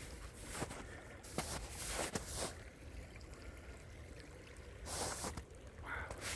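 A stream running with a faint steady trickle, and several footsteps.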